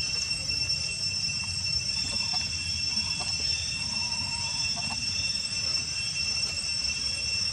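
Outdoor ambience: a steady high-pitched insect drone over a low rumble, with a few faint short calls in the middle.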